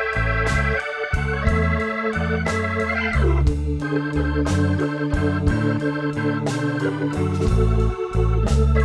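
Background music: sustained organ-like chords over a bass line and a steady beat, with a falling pitch sweep about three seconds in.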